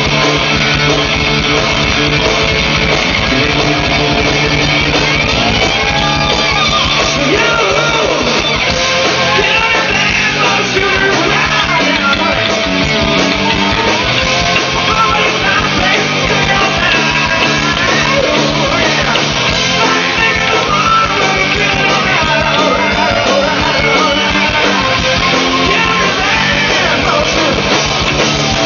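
Live rock band playing loud: electric guitar lead lines full of bending notes over bass and drums.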